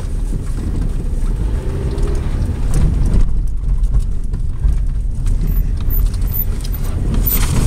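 Inside a vehicle's cabin driving slowly over a rough, rutted dirt road: a steady low rumble from the engine and tyres, with the body and loose items rattling and knocking over the bumps.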